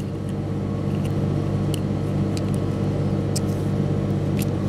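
Steady low electrical hum, with a few faint light clicks about a second apart as a Harting extraction tool works a pin contact out of a plastic Harting connector insert.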